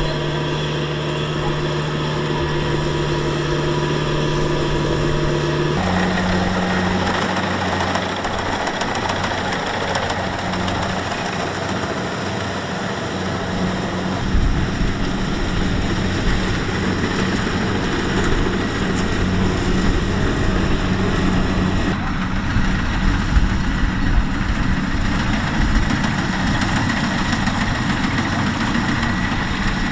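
Kubota DC-70X rice combine harvester's diesel engine running steadily under work, with the rattle of its machinery; the engine note steps up in pitch about six seconds in.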